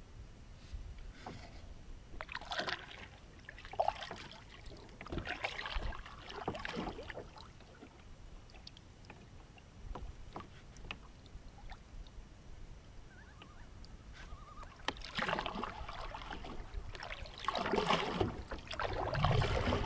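Double-bladed kayak paddle strokes swishing and splashing through the water, in two runs of strokes with a quieter pause between them; the later strokes are louder.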